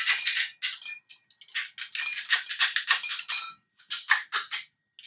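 A long metal bar spoon stirring liquid in a tall glass carafe, clinking rapidly and repeatedly against the glass with a light ringing tone. The clinking comes in runs, with short pauses about a second in and again after about three and a half seconds.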